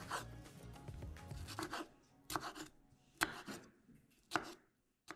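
Chef's knife dicing a nectarine on a wooden cutting board: the blade slicing through the fruit and knocking on the board, a busy run of cuts at first, then four separate knocks.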